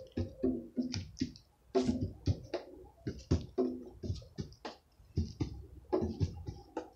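A rapid, irregular run of clicks and knocks, some with a brief low ring.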